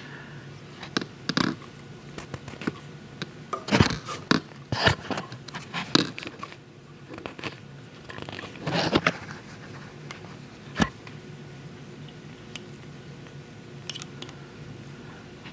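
Small handling noises of fly-tying work at the vise: sharp clicks, scrapes and short rustles as dubbing and tools are handled, busiest in the first few seconds and again about nine seconds in, then sparse.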